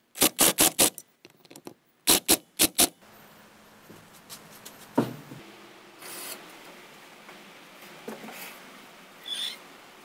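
Cordless drill/driver driving a bolt through a metal pipe strap into a board: two quick runs of four sharp knocks, about two seconds apart. After that, only a faint steady background with a few small clicks.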